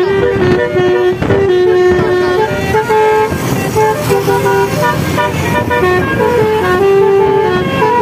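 A multi-tone telolet horn on a car playing a melody: a run of held horn notes stepping up and down in pitch, some short and some long, over road and engine noise.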